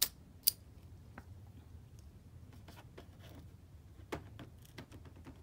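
Vintage Ronson Standard petrol lighter's automatic lever pressed and released, testing the freshly reassembled mechanism: two sharp metallic clicks about half a second apart. Faint small clicks follow, then a light knock about four seconds in as the lighter is set down.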